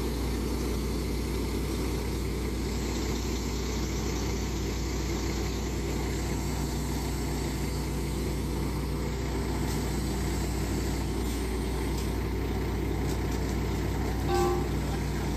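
Diesel engine of a truck-mounted crane running steadily at idle, driving the crane's hydraulics during a lift. A brief higher tone sounds near the end.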